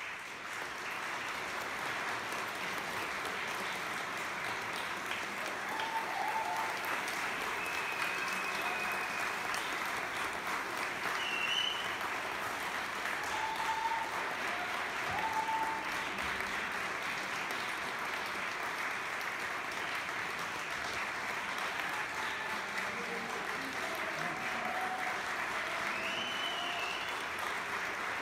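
Audience applauding steadily, with a few short voices calling out over the clapping.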